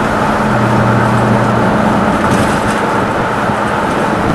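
Loud, steady road and wind noise inside a moving truck, with the engine's low hum underneath.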